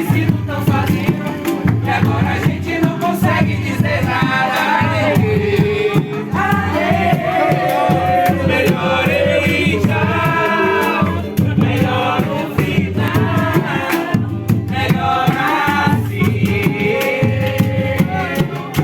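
Music: voices singing over a steady, evenly pulsing bass beat.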